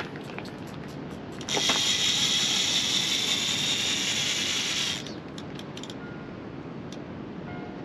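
Sea-fishing reel's spool spinning fast as line pays out during a cast with a heavy lead: a steady mechanical whir about three and a half seconds long that stops abruptly as the lead lands.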